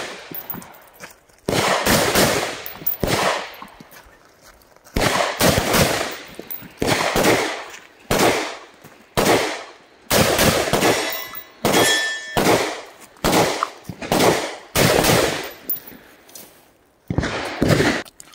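Del-Ton Sierra 316 AR-15 rifle in 5.56/.223 firing double-tap drills: about twenty sharp shots, many in quick pairs a fraction of a second apart, each with a short echo.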